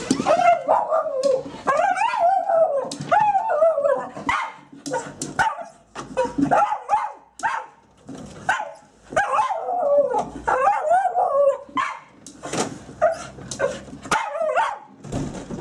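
Scottish Terrier vocalising excitedly: wavering, rising-and-falling howling whines mixed with yips and short barks, in two long runs with shorter calls between. Sharp clicks and rustles come in the gaps.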